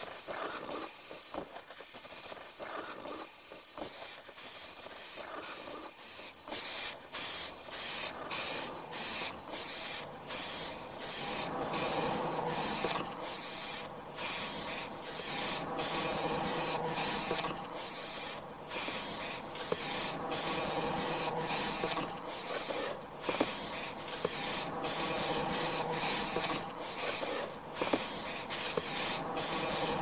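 Aerosol spray can of paint spraying the plastic heater knobs in short repeated bursts, a little more than one a second, each a sharp hiss. The bursts are quieter for the first few seconds, then louder and more regular.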